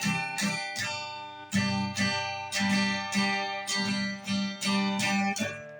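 Acoustic guitar strummed in a steady rhythm, each chord ringing and fading before the next stroke, dying away near the end.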